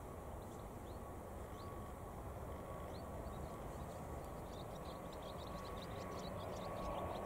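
Distant ATR 72-600 turboprop on approach, its engines and propellers a steady low drone with a faint high whine, growing slowly louder as it nears.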